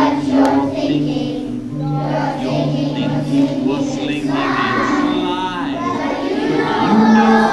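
Children's choir singing a song with musical accompaniment, held notes changing every half second or so.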